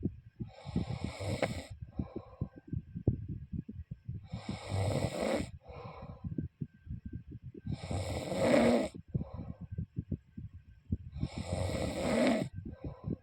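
A person snoring: four loud, rasping breaths about three and a half seconds apart, each followed by a short, softer breath, over a steady low fluttering rattle.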